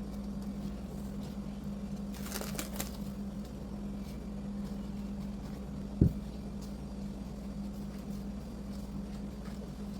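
A steady low hum throughout, with a brief crackly rustle about two seconds in and one sharp knock about six seconds in.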